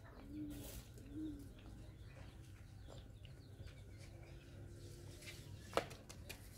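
Dove cooing: two short low coos in the first second or so, then fainter drawn-out notes, over a low steady rumble. A single sharp click or knock comes near the end.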